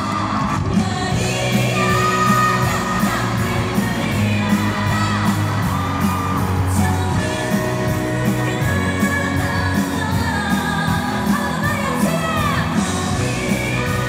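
Live pop music from a concert PA: a woman sings into a handheld microphone over an amplified band with a steady beat.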